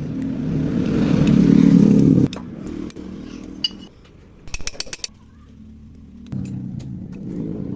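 A motorcycle engine runs and revs up, then cuts off abruptly about two seconds in. A quick run of clicks follows around the middle, and the engine sound comes back near the end.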